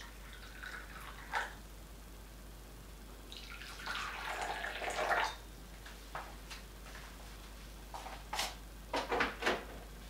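Krups XP 3440 espresso machine warming up: scattered ticks and clicks, with a short watery hiss and gurgle about four seconds in and a quick run of clicks near the end.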